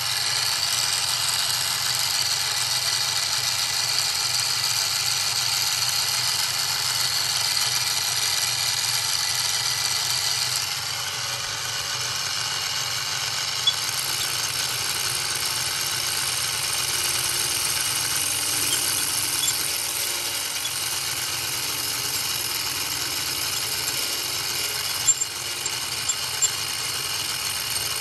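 Drill press spinning a StewMac Safe-T-Planer cutter disc, running steadily while it shaves the face of a wood block, with a high hiss from the cut. The hiss eases about ten seconds in, and a few sharp clicks come near the middle and towards the end.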